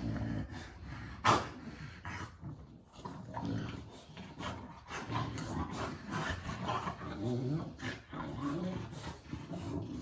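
A French Bulldog making low vocal sounds on and off, with one sharp knock about a second in.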